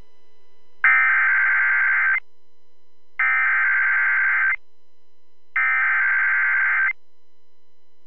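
Emergency Alert System SAME header broadcast over FM radio: three identical bursts of digital data tones, each just over a second long and about a second apart. This marks the start of an incoming emergency alert.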